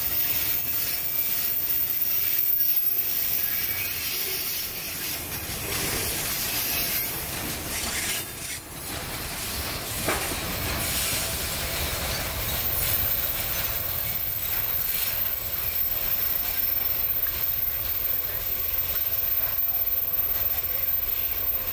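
Freight train of tank cars rolling past: steel wheels running on the rails, a steady hiss with faint clicks, dipping briefly about eight seconds in.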